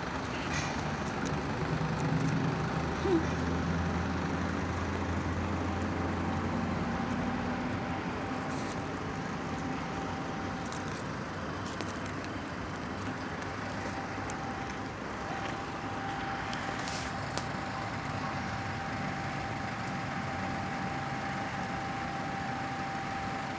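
Street traffic noise, with a motor vehicle's engine running close by and its hum fading after about eight seconds. A thin steady tone sounds through most of it, with a few faint clicks.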